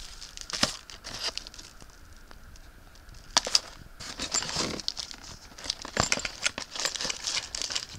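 Cardboard and plastic packaging rustling and crinkling as cables and a coiled microphone cord are lifted and handled in the box, with scattered sharp clicks and knocks.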